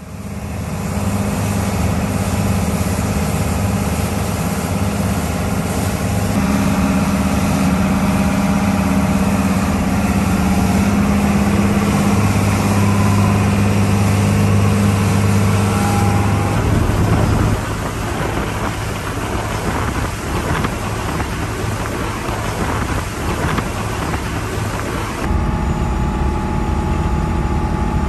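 Yanmar 6CX-ET six-cylinder marine diesel running steadily under way, a loud drone, with the water of the wake rushing along the hull. Partway through, the engine note recedes under a rushing noise, then comes back strongly near the end.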